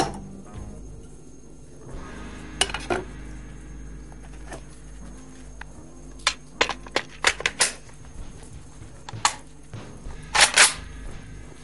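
Sharp metal clicks and clacks of a silenced sniper rifle being assembled by hand, its suppressor and scope fitted into place. Single clicks at first, a quick run of them in the middle, and a few more near the end.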